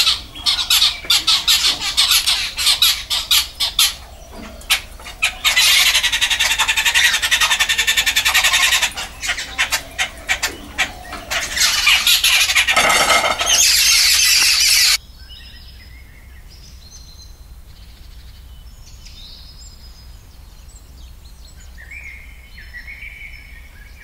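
A flock of babblers chattering and squawking loudly in rapid, harsh, overlapping calls. These stop abruptly about 15 seconds in and give way to fainter, scattered bird chirps.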